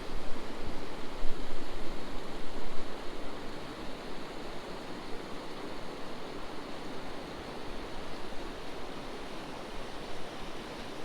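Steady rushing of a fast, high river, a little louder for the first few seconds.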